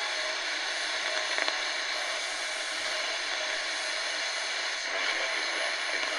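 Steady static hiss from the KNSTAR RX-608ACW portable radio's speaker, tuned near the bottom of the AM (medium wave) band with no station locked in.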